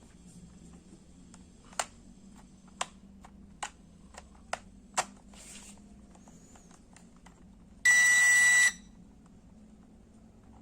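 Six light clicks of handling or button presses, then one loud electronic beep that lasts just under a second, a single steady high tone. The beep comes from the JJRC H33 mini drone set, typical of the drone or its remote being switched on or paired.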